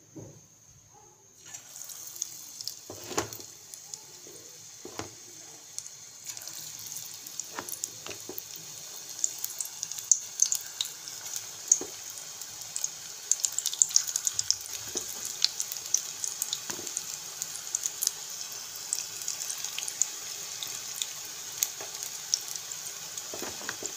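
Spinach pakoras in gram-flour batter deep-frying in hot oil in a kadhai: a sizzle that starts about a second and a half in and thickens into a dense crackle of many small pops as more batter goes into the oil. A few soft knocks come in the first several seconds.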